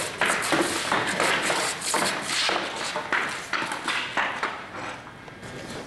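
An uneven run of taps, clatter and scuffing as a rod puppet's legs and control rods strike and drag on a concrete floor and cardboard sheets while it is walked, mixed with the puppeteers' shuffling footsteps. It eases off a little near the end.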